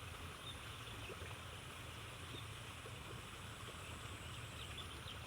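Faint outdoor ambience: a steady, high-pitched insect trill over a low, even background noise.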